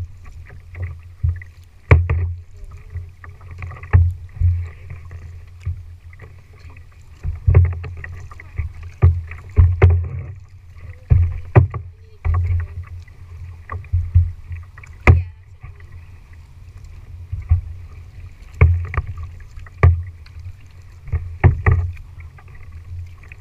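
Double-bladed paddles working a plastic tandem kayak: sharp knocks and clicks every second or two as the paddles dip and touch the hull, over a steady low rumble of water against the hull and a faint splashing hiss.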